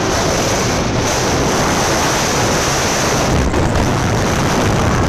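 Steady loud rush of wind over the microphone mixed with the rumble of the California Screamin' steel roller coaster train running at speed along its track.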